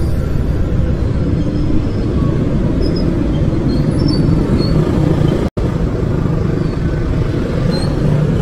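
Steady motorcycle engine and wind noise while riding in city traffic, cutting out for an instant about five and a half seconds in.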